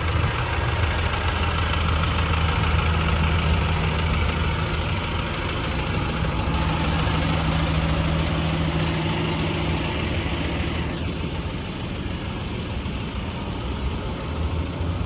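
CAT diesel engine of a 2009 Blue Bird school bus idling with a steady low hum, a little fainter in the last few seconds.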